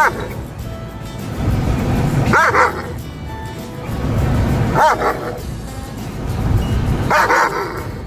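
White German Shepherd barking and yelping in a car's back seat: four loud, high calls about two and a half seconds apart, each rising and then falling in pitch. Background music plays under them.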